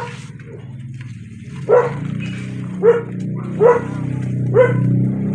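A dog barking, five short barks about once a second, over a steady low hum that gets louder from about two seconds in.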